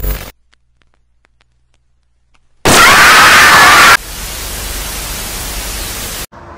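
TV static sound effect: a loud, even hiss of white noise that cuts in about two and a half seconds in, drops to a softer hiss after about a second and a half, and cuts off suddenly near the end. A short burst of sound right at the start, then near silence before the static.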